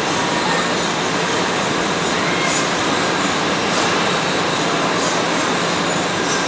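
Steady, loud machinery running noise: an even rushing hiss with no pauses, and faint high ticks about once a second.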